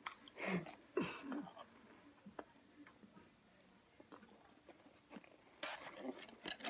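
Faint chewing and crunching of crackers, with small clicks and rustles of crackers and cheese being handled over a plastic snack tray. A short cluster of louder crackles comes near the end.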